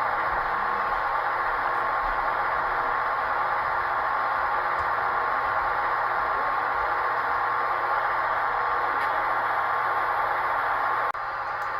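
Model passenger train running on the layout: a steady rolling clatter of wheels on the track, mixed with the diesel locomotive sound of the Amtrak SDP40F's sound decoder. The sound changes abruptly about eleven seconds in.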